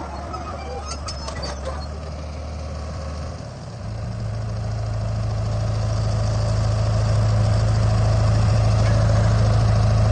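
Heavy machine's diesel engine running steadily. About four seconds in, its low hum steps up in pitch and grows louder over the next few seconds, then holds steady.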